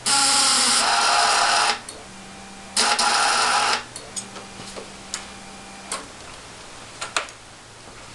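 Suzuki TL1000R V-twin being cranked on its electric starter in two bursts, one of nearly two seconds and then a shorter one about three seconds in, without the engine catching. This is a cold first start after winter. Between the cranks a faint steady hum is heard, followed by a few light clicks.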